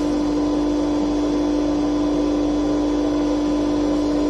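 Vacuum of a workshop dust collection system running steadily, a constant hum with an even rush of air, pulling suction through the ducting at the disc sander's dust port.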